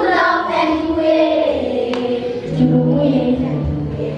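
Children's choir singing together in Bambara, with steady low notes underneath in the second half.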